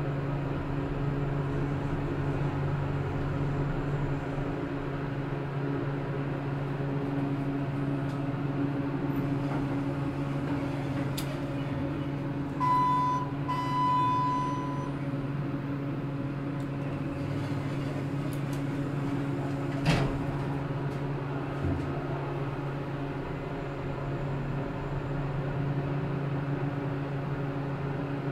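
Steady low machine hum with an even pitch. About halfway through a two-part electronic beep sounds, short then longer, and a single sharp click follows several seconds later.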